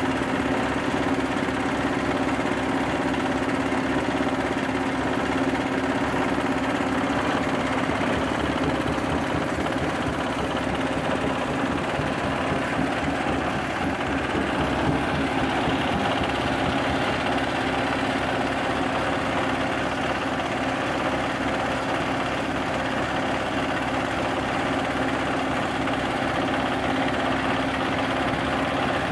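Rice-husk bran grinding mill, belt-driven by a small single-cylinder diesel engine, running steadily as it grinds husks into fine bran. A constant engine hum with a held mid-low tone.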